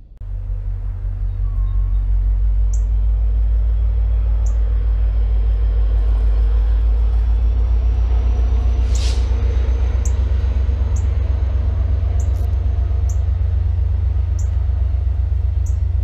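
Loud, steady low rumble of wind buffeting the microphone. Over it come about eight short, sharp, high chip notes from a bird, typical of a northern cardinal's alarm chip near its nest. A brief hiss about halfway through.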